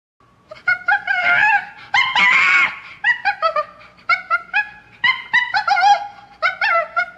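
A run of short, high-pitched animal yelps and squeals that bend in pitch, about three or four a second, with one longer, harsher squeal about two seconds in.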